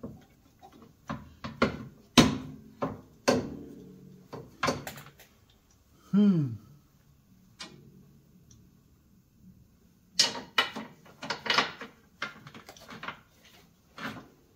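Metal knocks and clanks, some briefly ringing, as a coil-over shock and its mounting hardware are forced by hand into the front suspension of a Polaris Ranger 400. The parts are binding and won't seat. A short falling grunt comes about six seconds in, and the knocking comes in two busy spells with a quieter gap between them.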